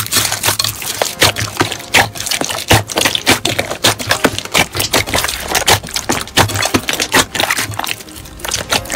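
Clear green slime packed with small beads being pressed and squeezed by hand: a dense, continuous run of crackling pops and wet squelches.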